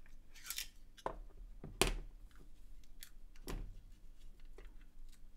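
Small screwdriver and plastic parts of a Voopoo Drag vape mod clicking and tapping as it is taken apart, a screw being removed to free the circuit board: a few light clicks, the sharpest about two seconds in.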